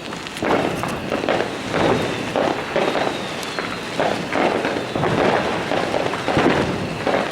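New Year's fireworks and firecrackers going off all around, a dense, irregular run of bangs and crackles several times a second.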